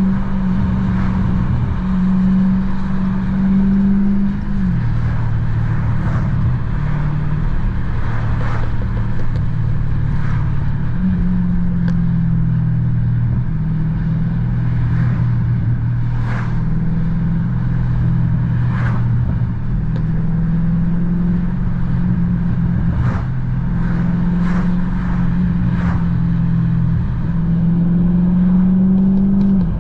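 Car engine pulling through its gears: the engine note climbs, then drops and climbs again several times. Scattered sharp pops punctuate it, the exhaust popping of a BMW 440i.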